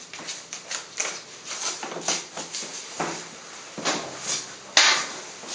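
Handling noises during leg waxing: a quick run of short rustles and light knocks, with one louder, sharp knock a little under five seconds in.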